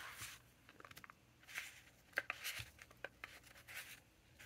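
Faint rustling and sliding of paper ink-swatch cards being handled and laid down on a desk, with a few light taps about halfway through.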